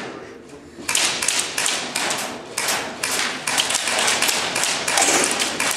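A rapid, irregular run of taps and thuds, several strikes a second.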